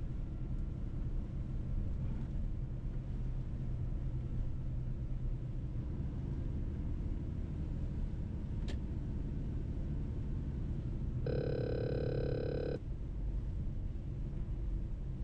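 Mercedes-Benz truck driving, its engine and road noise a steady low rumble. About eleven seconds in, a single held tone with bright overtones sounds for about a second and a half, then cuts off.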